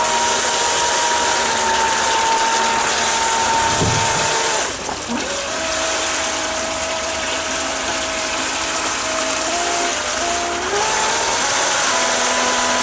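Electric jet-drive pump of a DIY jet surfboard running on test, its motor whining over the gush and splash of the water jet churning into a tank. The whine drops in pitch about five seconds in as the throttle is eased, then climbs back up in several steps.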